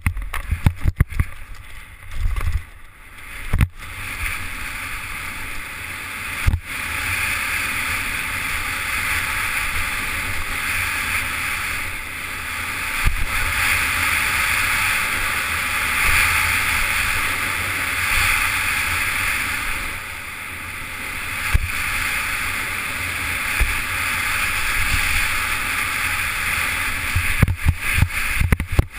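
Skis hissing and scraping over hard-packed snow at racing speed, with wind buffeting the microphone; the hiss swells and eases with the turns. Irregular knocks in the first few seconds as the skier leaves the start, then occasional sharp thumps from bumps and landings, several close together near the end.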